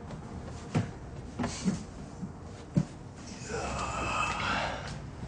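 A few light knocks of handling, then a towel rubbed over a face, a rustling noise lasting about a second and a half near the end.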